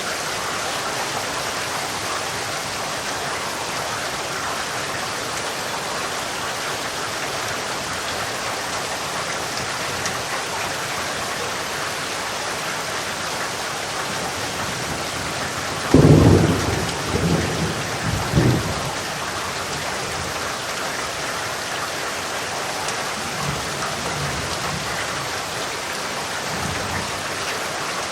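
Steady rain falling, with a sudden crack of thunder about halfway through that rolls on in rumbles for a few seconds; fainter rumbles of thunder follow near the end.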